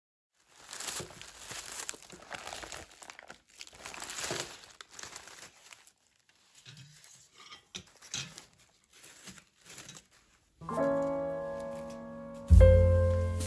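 Newspaper and dry corn husks crinkling and rustling as popcorn-corn cobs are handled, in quick irregular crackles at first, then fainter and sparser. Piano music comes in about three-quarters of the way through and becomes louder than the crinkling.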